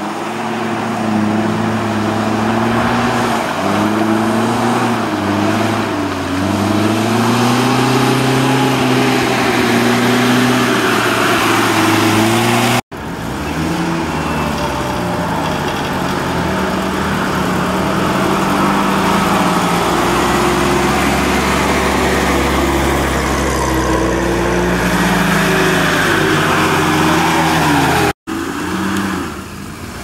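Off-road 4x4 engines revving hard under load while driving through deep mud, the pitch rising and falling with the throttle. The sound breaks off for an instant about 13 s in and again near the end, where the footage jumps to another vehicle; after the first break it is a Lada Niva's engine.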